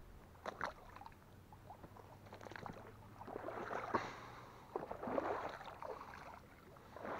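Water splashing and sloshing in a few bursts, with scattered sharp clicks, as a hooked fish is brought in to the bank.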